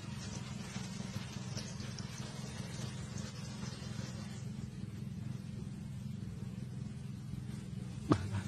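Small boat motor running at a steady low hum. Near the end there is one brief, loud squeal that falls sharply in pitch.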